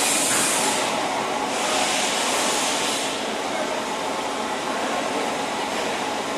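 Steady din of a railway workshop, with two bursts of hissing within the first three seconds.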